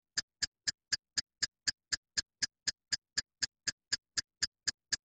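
Steady ticking, about four sharp ticks a second, with dead silence between them.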